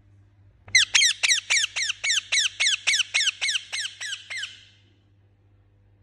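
A rose-ringed (Indian ringneck) parakeet giving a rapid run of about fourteen harsh, chirping calls, about four a second, each sliding down in pitch. The calls start suddenly under a second in, loudest at first, and fade a little before stopping near the end.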